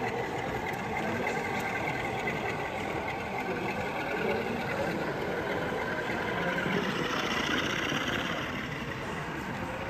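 Model diesel locomotive hauling a train of goods vans along the layout, with a steady engine-like drone and running noise that swells a little partway through.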